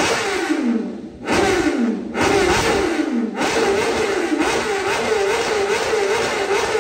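BMW S1000RR inline-four revved through an aftermarket Arrow exhaust: four sharp throttle blips, each falling back, then revs held and wavering for about three seconds before sinking back near the end.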